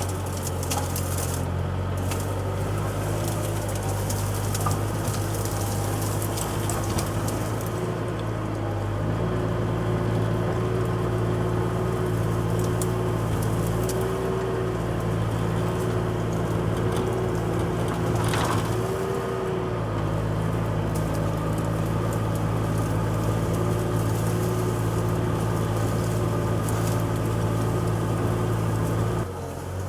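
Engine running steadily, with wood cracking and splintering over it.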